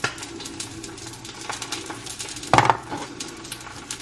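Fried egg crackling and spitting in an oiled pan: a steady run of small sharp pops. A louder clatter about two and a half seconds in.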